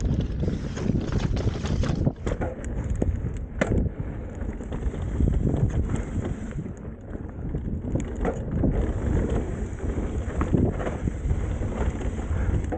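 Mountain bike ridden down a dirt trail at speed: wind buffeting the microphone over tyre noise, with many short knocks and rattles from the bike hitting bumps.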